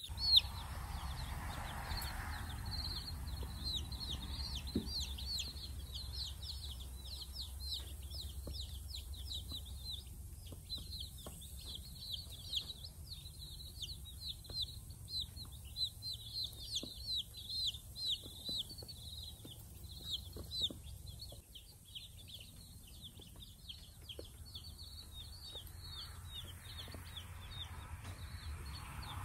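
A batch of baby chicks peeping steadily: many short, high chirps, each falling in pitch, coming thick and fast. A faint low hum lies underneath and stops about two-thirds of the way through.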